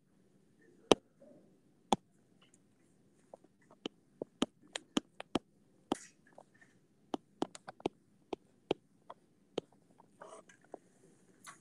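Stylus tip tapping and ticking on an iPad's glass screen while numbers are handwritten: a long series of sharp, irregular clicks, most frequent through the middle.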